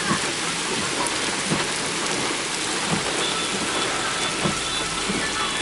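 Heavy typhoon rain pouring down with overflowing floodwater, a steady dense hiss.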